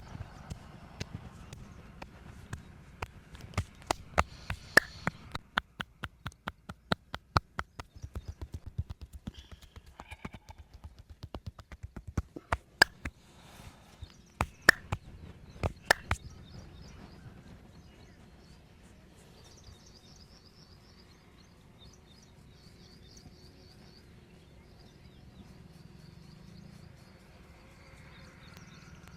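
Percussive hand massage: sharp slaps and claps of hands striking a person's head and back, coming in quick runs of strikes, some very loud. The strikes stop about two-thirds of the way through, leaving only faint rubbing sounds.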